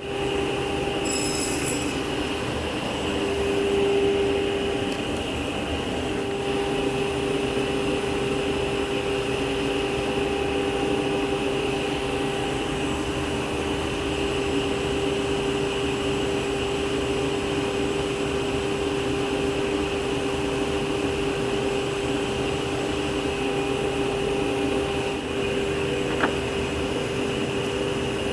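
Martin T60 sliding table saw running at speed, with a steady whine, as it makes a pass of a multi-pass dado cut. There is a single small click near the end.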